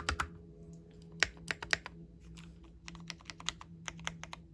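Keys of a mechanical keyboard being typed on in a sound test: irregular keystrokes, with a few sharp ones about a second in and a steadier run of typing in the second half. The switches are linear, which the owner takes for red switches, probably Gateron.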